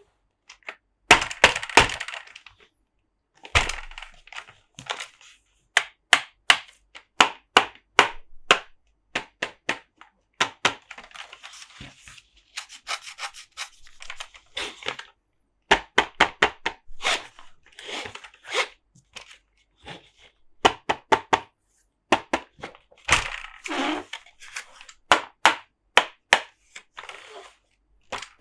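Close-up tapping and scratching on plastic Monster Jam toy trucks: quick runs of sharp clicks and taps, with short bouts of scratchy rubbing between them.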